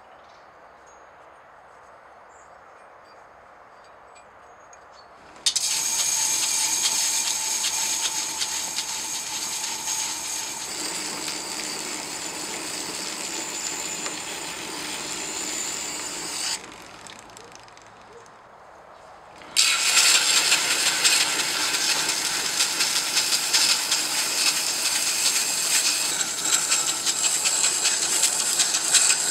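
Leaf-spring steel axe head being ground on a powered grinding wheel: a steady, hissing grind starts about five seconds in, stops for about three seconds near the middle, then starts again just as loud.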